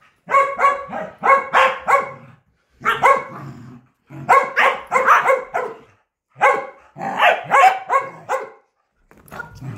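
Corgi barking during a game of fetch, in quick runs of several barks with short pauses between them.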